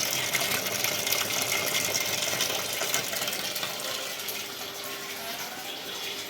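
LG top-load washing machine running with a steady rush of water and small rattling clicks, the noise slowly dying down; a faint steady hum comes in near the end.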